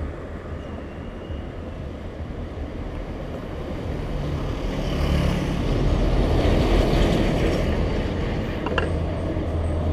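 Street traffic: engines and tyre noise, swelling as a vehicle passes close, loudest about six to seven seconds in.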